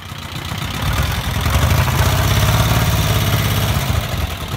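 A VW Vanagon Syncro's 2.1-litre Waterboxer flat-four engine idling, with a steady low exhaust drone that swells over the first second and eases a little near the end.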